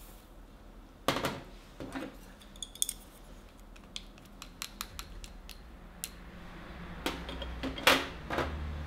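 Small glass ingredient dishes and wooden chopsticks clinking and tapping against a glass mixing bowl and a stainless steel counter while ingredients are added: a few clinks, one with a brief ring, then a run of light ticks, and two louder knocks near the end.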